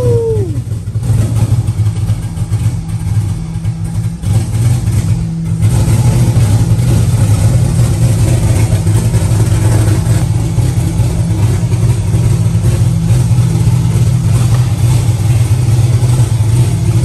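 Newly built turbocharged 427 LSX V8 idling steadily on its first startup. It runs quieter for a few seconds about a second in, then settles back to a steady, loud idle.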